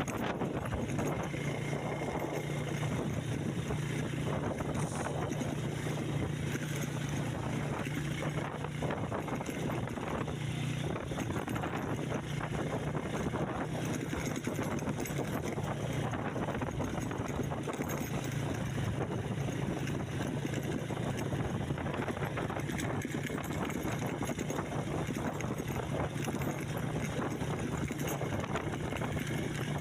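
A vehicle engine running steadily at an even pitch, with a constant rushing noise over it, as when travelling along a road.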